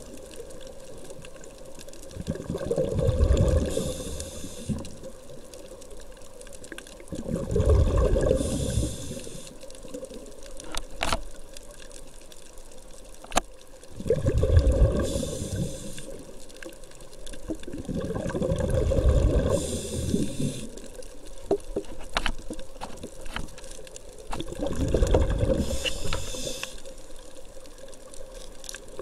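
Scuba diver's regulator breathing underwater: five breaths, each a burst of bubbling rumble and hiss, about five to six seconds apart, with a few sharp clicks in between.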